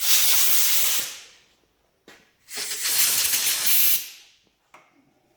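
Compressed-air blowgun blowing metal chips out of a freshly tapped hole: two blasts of hiss, the first about a second long, the second about a second and a half.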